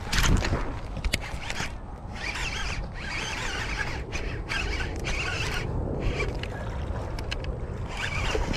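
Daiwa Tatula baitcasting reel being cranked in irregular spells, a rasping whir broken by short pauses, over a steady low rumble. A sharp knock comes right at the start.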